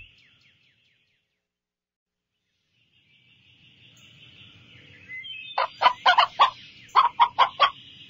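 Chicken clucking: two quick runs of short, loud clucks, starting about five and a half seconds in and again about seven seconds in. Before them, a faint background of small birds chirping fades in about three seconds in, after a near-silent start.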